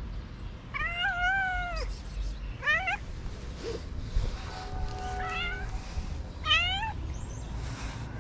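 Orange tabby stray cat meowing four times: one long meow about a second in, then three shorter meows that rise in pitch.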